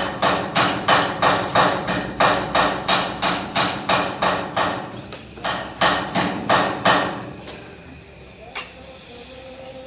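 Hammer blows on the bodywork of a Hino truck cab under repair, in a steady run of about three strikes a second. There is a brief break near the fifth second, the run stops just after seven seconds, and one lone blow follows near the end.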